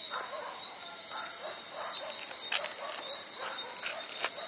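Crickets chirring steadily at night, two high continuous tones, with faint scattered clicks over them.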